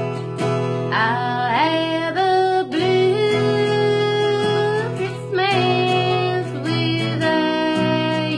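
Acoustic guitar strummed in steady chords with a voice singing a melody over it, the singing coming in about a second in.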